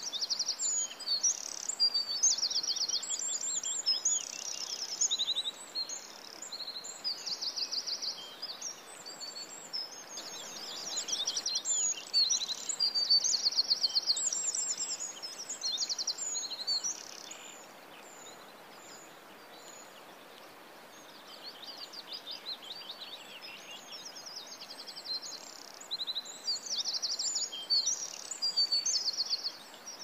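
Bananaquit singing: high, rapid buzzy trills in short repeated phrases, with a quieter lull past the middle.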